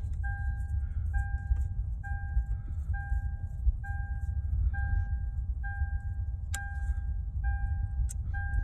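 2007 Toyota 4Runner's dashboard warning chime beeping steadily, about once a second, while the key is on, over a low rumble. A couple of sharp clicks come near the end.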